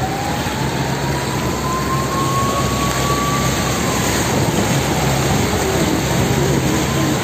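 A vehicle pushing through deep floodwater: a steady rush and splash of water breaking against it, with a low engine hum underneath. A faint high whine slowly rises and falls in pitch.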